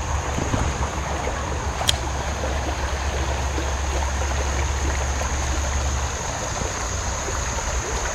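Creek water running over small rapids: a steady rush, with one sharp click about two seconds in.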